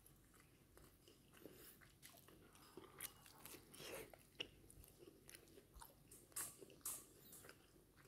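Faint close-up chewing of a toasted kebab wrap: soft, crackly crunches and mouth clicks, a little busier from about three seconds in.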